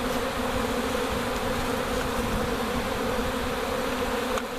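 Honey bee swarm buzzing in flight as it moves into a bait hive box, a dense, steady hum that holds one pitch throughout.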